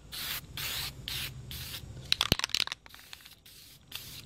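Aerosol can of primer spraying in a quick series of short hissing bursts over about the first two seconds, followed by a few sharp clicks and crackles.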